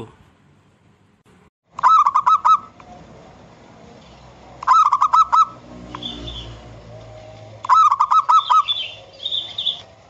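Zebra dove (perkutut) singing: three phrases of rapid staccato cooing notes, each about a second long and a few seconds apart, with faint higher chirps between them.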